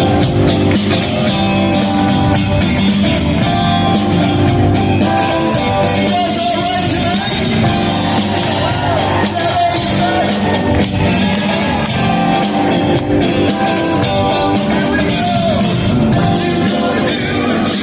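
Live rock band playing a song at full volume, with singing over the band.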